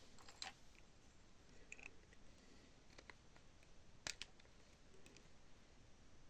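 Near silence with scattered faint clicks and taps of small tools and parts being handled, one sharper click about four seconds in.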